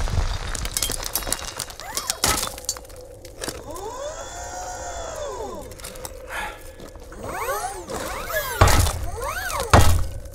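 Action-film sound effects of a crash landing in rubble: crackling and breaking debris with a heavy hit about two seconds in, whirring tones that rise and fall in pitch through the middle, and two heavy thuds near the end.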